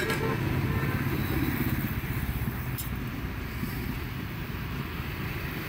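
Road traffic: a steady low rumble of motor vehicles passing, with one engine drawing by in the first couple of seconds.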